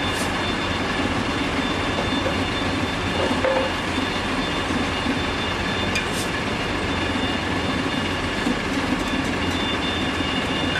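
Heavy machinery running steadily: a low rumble with constant high whining tones over it, and a short click about six seconds in.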